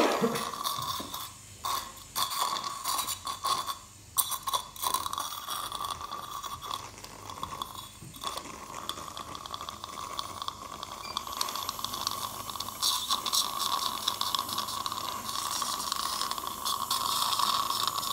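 Dental implant surgical motor driving a contra-angle handpiece in the jawbone: a steady whine that stops and starts briefly a few times in the first seconds, then runs steadily, with suction hissing. A brief sharp sound right at the start.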